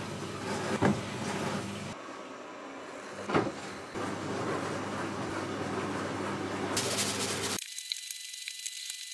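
Sparkling wine poured into a glass flute, fizzing with a steady hiss, with a few light clinks of glass. Near the end the sound changes to the light taps of a kitchen knife cutting an onion on a wooden cutting board.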